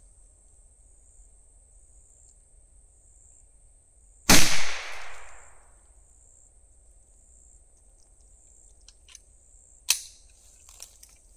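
A .22 rifle fires a single .22 Long Rifle round about four seconds in: one loud shot with a short echoing tail. A single small sharp click follows near the end.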